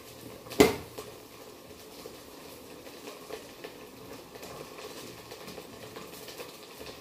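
A single sharp knock about half a second in, then faint scattered clatter over a low hiss.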